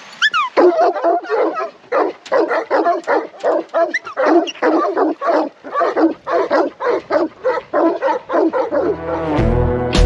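Working sheepdog barking rapidly and repeatedly, about three barks a second, to drive sheep during a muster. Background music comes in near the end.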